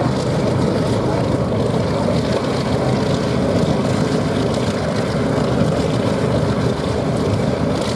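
Engines of WWII-era piston-engined fighter aircraft running steadily on the airfield, a continuous propeller-aircraft engine sound with no breaks or changes in level.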